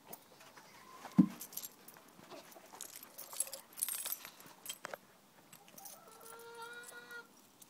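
Ex-battery hens in their coop: near the end, one hen gives a single drawn-out call at a steady pitch lasting about a second and a half. Before that there are scattered clicks and rustling, and a sharp knock about a second in, which is the loudest sound.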